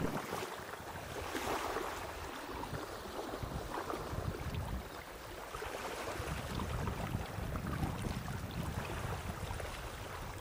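Wind gusting on the microphone over waves lapping at the river shore, a steady wash of noise with no distinct events.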